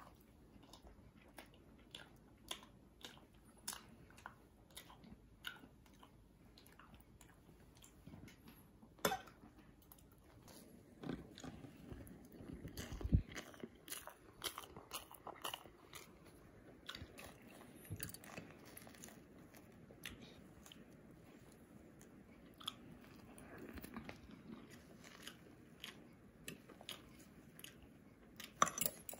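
Close eating sounds of a soft rolled omelet: chewing, with frequent light clicks and scrapes of a metal fork on a ceramic plate. One louder knock comes about halfway through.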